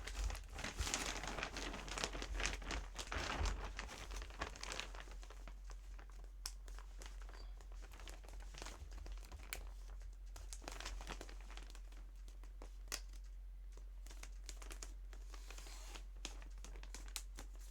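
Bag and packaging crinkling and rustling as clothing is stuffed into a bag and handled. It is busiest for the first few seconds, then turns into sparser rustles and small clicks.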